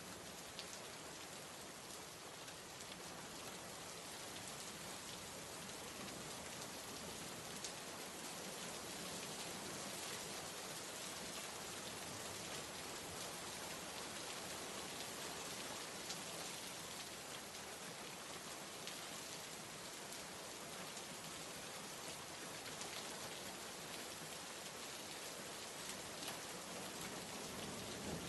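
Steady rain falling, with occasional sharper drop ticks.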